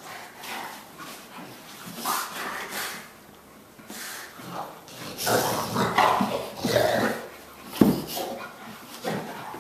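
Dogs vocalising in rough play: short yips and whines in irregular bursts, loudest from about five to seven and a half seconds in, with a sharp knock near eight seconds.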